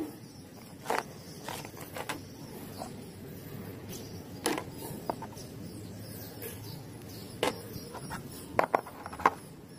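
Mud-coated plastic toys being picked up and set down: a handful of scattered light knocks and clicks a second or more apart, over faint steady background noise.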